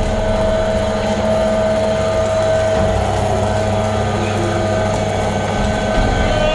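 Motorised caving winch running steadily as it hauls a person up a vertical shaft, a constant electric-motor hum with a steady whine.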